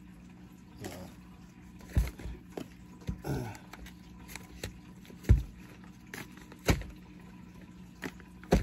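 Handling noise close to the microphone: about five sharp knocks and thumps spread a second or two apart, the loudest a little past the middle, over a faint steady low hum.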